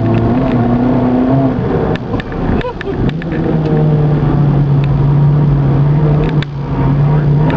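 Turbocharged Skoda Fabia vRS engine heard from inside the cabin while driving on track, running at steady revs. About two and a half seconds in the note breaks off briefly and comes back at a different steady pitch, which it holds.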